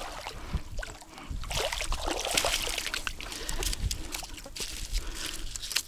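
Water splashing and dribbling, with scattered clicks and rustles, as a just-caught crucian carp is handled and unhooked.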